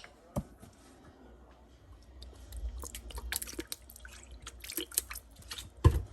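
Lemon juice being measured by the tablespoon into a pot of soup: liquid pouring and dripping, with scattered light clicks of the spoon and bottle and a sharper knock shortly before the end.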